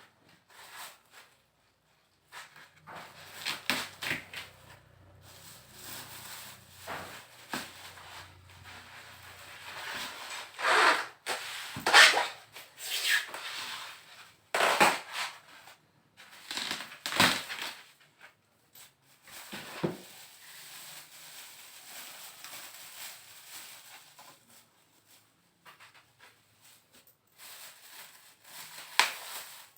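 A gaming PC case and its packaging being handled and unpacked: irregular scrapes and rubs, loudest in a cluster near the middle.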